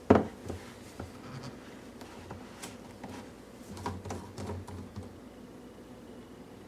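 A sharp knock at the start, then faint scattered clicks and scrapes of things being handled. The blender motor is not running.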